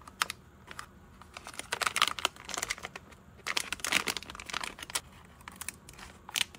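Metallic anti-static bag crinkling loudly as it is handled and snipped open with scissors, in two long spells, with a few light clicks from the clear plastic case around it.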